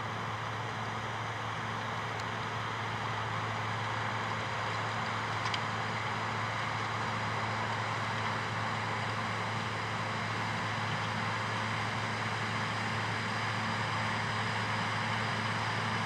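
New Holland TM135 tractor's diesel engine running steadily under load while driving a Kuhn power harrow and seed drill: a steady low drone under a broad haze of working noise, growing slightly louder.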